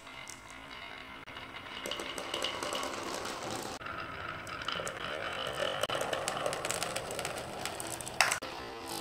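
Many glass marbles rolling and clicking against each other and the track in a marble run, a dense rattle of small clicks that grows louder, with one sharp knock near the end.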